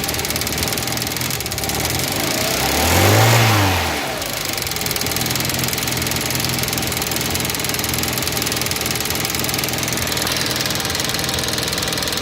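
Car engine idling cold on LPG, with the AEB gas injectors knocking loudly and the engine running a little unevenly. About three seconds in the engine revs up briefly and drops back to idle. The injector knock and rough running are typical of this engine before it has fully warmed up on gas, and go away once it is warm.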